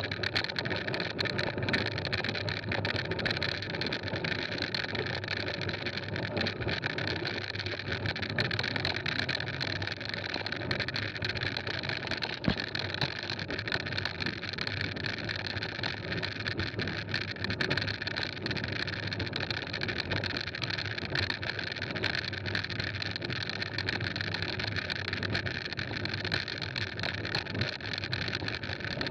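Mountain bike rolling along a gravel road: steady tyre and wind noise with a constant scatter of small rattles and clicks.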